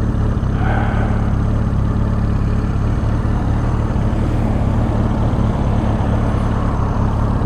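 1983 Suzuki GS1100E's air-cooled inline-four idling steadily while stopped, with what sounds to the rider like a little bit of a miss.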